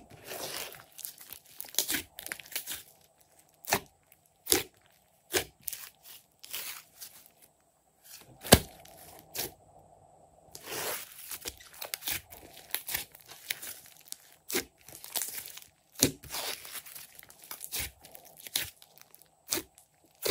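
Glossy slime being squeezed and stretched by hand, giving an irregular series of sharp crackling pops and clicks from trapped air, with one much louder pop a little before halfway.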